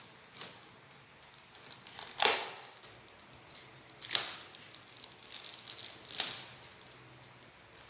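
Clear plastic zip-lock bag crinkling and rustling as it is handled and pulled open, in several separate swishes about two seconds apart, with a short sharp click near the end.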